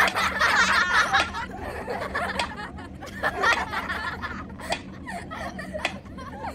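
A person laughing, loudest in the first second and a half, while a mechanical pyramid metronome ticks with its pendulum swinging.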